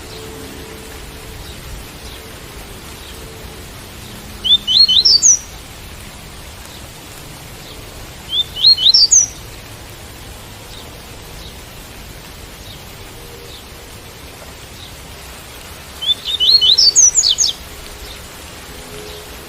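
Double-collared seedeater (coleiro) singing its "tui-tui" song: three short phrases of quick rising whistled notes, the last one the longest. Steady rain noise runs beneath them.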